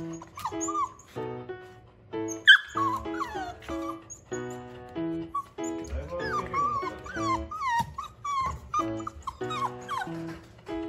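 Labrador puppy whining, a run of high whimpers that rise and fall in pitch, with a sharp yelp about two and a half seconds in: it is eager to greet. Background music with light repeated notes plays throughout.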